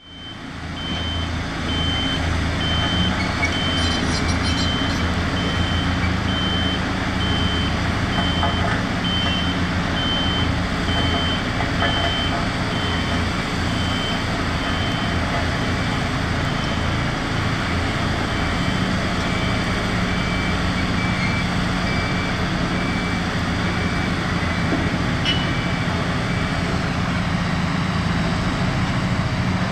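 Heavy diesel machinery running steadily while a reversing alarm beeps evenly, a little more than once a second. The beeping stops a few seconds before the end.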